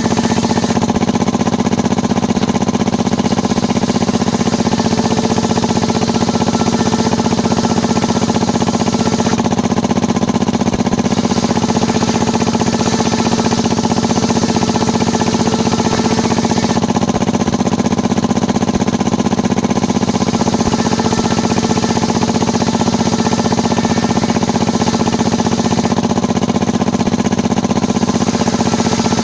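Small circular-saw sawmill bench running steadily, a constant machine drone with a steady hum, while waru timber is ripped into battens.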